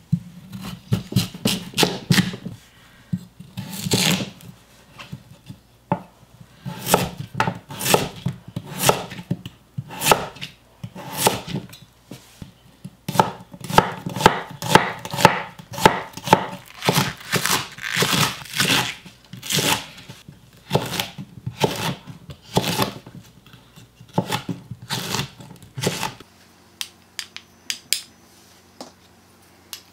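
Kitchen knife chopping Korean radish and onion on a wooden cutting board: a long series of sharp knocks of the blade on the board, in irregular runs of several strokes a second. The chopping stops near the end.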